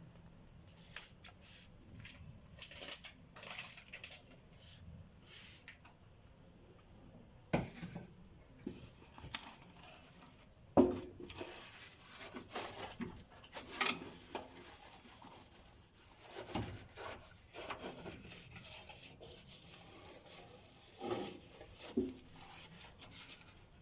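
Scrubbing and wiping inside a microwave oven cavity, irregular rubbing and scraping strokes with a few sharp knocks against the oven's interior.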